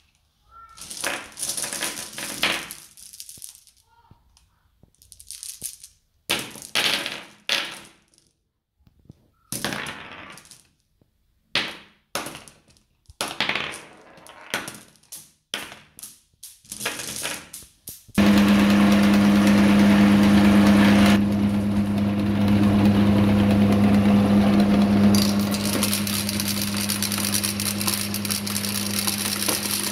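Glass marbles clinking and rattling against one another in a plastic plate as a hand stirs and picks them up, in short irregular bursts. About 18 seconds in, the belt-driven meat grinder's electric motor switches on and runs with a steady hum.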